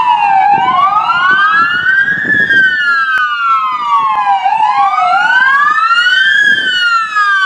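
Police car siren sounding a wail: a tone rising and falling slowly, a few seconds each way, with a second overlapping sweep just out of step, over a low rumble.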